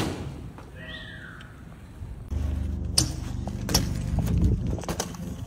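BMX bike on concrete: a steady low rumble of tyres rolling from about two seconds in, with several sharp knocks of the tyres popping off and landing on the ground as the rider hops. A short squeak about a second in.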